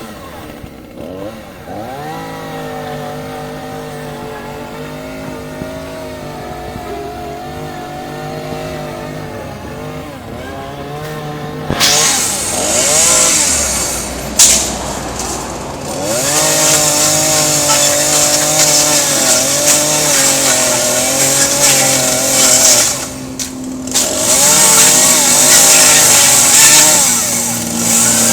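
Chainsaw idling for about the first twelve seconds, then revved up hard and cutting, easing off briefly twice along the way.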